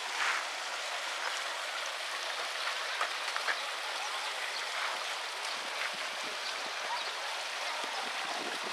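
Steady hiss of running water, with a few faint short ticks.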